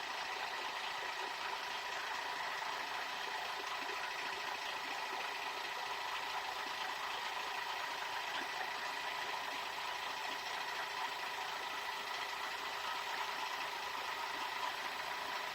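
A steady mechanical hum, like a motor running, with a constant tone and no change in level.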